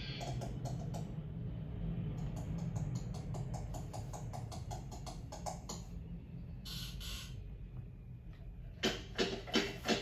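Film foley of plastic toy army men's footsteps: a run of small, light taps over a steady low hum. About nine seconds in they give way to a heavier regular marching beat of about three steps a second.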